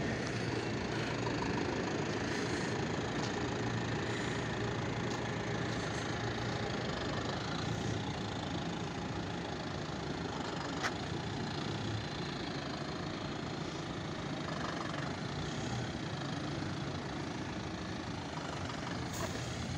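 Minibus diesel engine running at low speed as the bus drives slowly away, a steady low hum that slowly grows fainter. A single sharp click about eleven seconds in.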